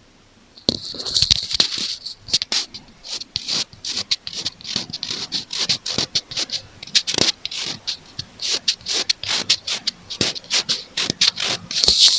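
Close-miked tapping and scratching on an earphone microphone, ASMR ear-cleaning style: quick, irregular strokes, several a second, starting a little under a second in.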